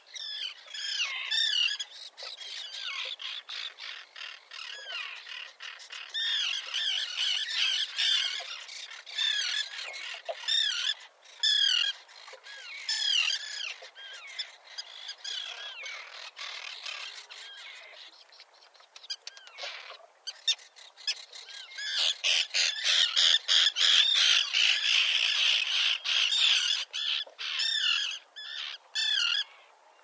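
Common tern colony calling: many harsh, overlapping calls that thin out for a few seconds just past the middle and are thickest in the last third.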